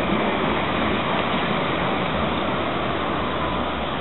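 Alstom Citadis tram running along street track and pulling away, under a steady rushing hiss. A low hum comes in about three seconds in.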